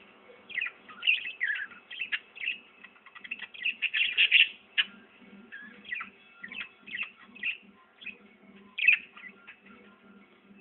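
A small bird chirping in quick, irregular bursts of short, sharp calls, densest and loudest in the first half, then thinning out toward the end.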